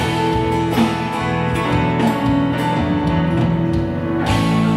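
Live band playing a slow pop ballad, led by acoustic guitar.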